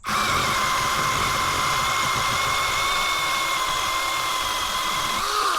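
SeeSii cordless brushless-motor mini chainsaw starting up and running hard with a steady high whine and chain noise, cutting wood with its unsharpened factory chain. Near the end the pitch shifts briefly as the chain runs free.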